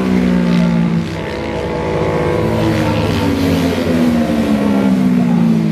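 Racing motorcycle engine running on the circuit, its note falling slowly in pitch.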